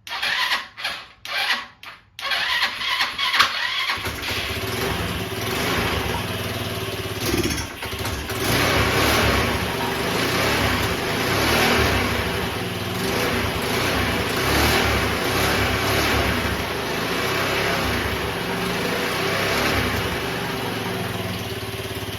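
GY6 scooter engine started on its electric starter: a few short bursts of cranking, then it catches about two seconds in. It keeps running, rising and falling slightly in speed, and is starting and running on its starter button after a rebuild.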